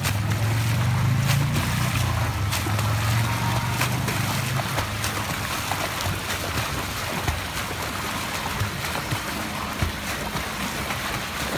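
Water splashing and churning from a swimmer's front-crawl arm strokes and kicks. A low steady hum runs under it for the first few seconds and then fades.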